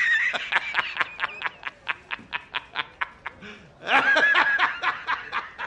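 A man's high-pitched cackling laugh, the J. Jonah Jameson laughing meme: a held shriek breaking into rapid ha-ha-ha's at about six a second, in two bouts, the second starting about four seconds in.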